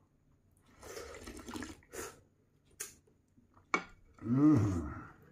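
A person slurping thin, lassi-thinned chili broth straight from the rim of a plate, with a few sharp lip and mouth clicks between sips, then a short vocal sound near the end.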